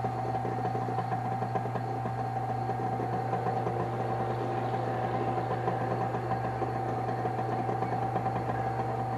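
Wood lathe running at a steady speed, a continuous motor hum with one constant tone, spinning a turned coat peg while a friction polish of linseed oil, shellac and denatured alcohol is applied.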